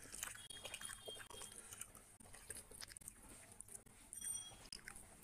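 Close-miked eating sounds: soft, irregular chewing and mouth clicks, mixed with fingers tearing meat from a whole grilled chicken.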